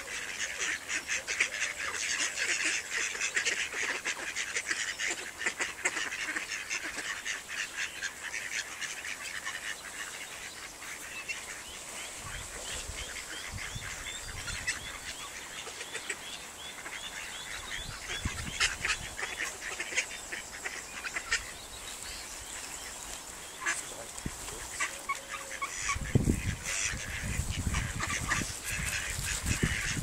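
Mallard ducks and their ducklings calling, a near-continuous chatter of quacks and peeps, with some low rumbles near the end.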